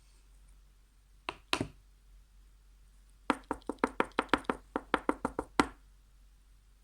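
Two sharp knocks, then a quick run of about a dozen hard taps, about five a second, that stops suddenly.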